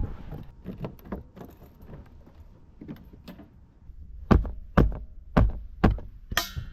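Scattered light clicks and knocks, then four heavy thumps about half a second apart in the second half.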